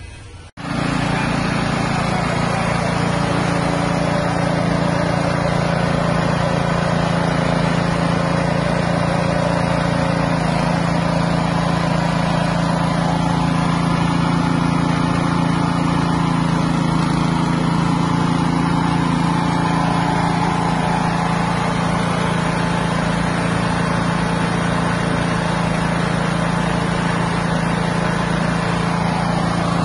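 Small single-cylinder engine running steadily at constant speed, driving a fish-feed pellet machine. The sound cuts in abruptly about half a second in.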